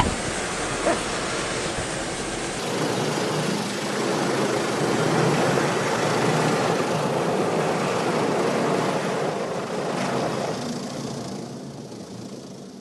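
Automatic car wash machinery and water spray heard from inside a car's closed cabin as a steady, muffled noise. It grows louder about three seconds in and fades away near the end.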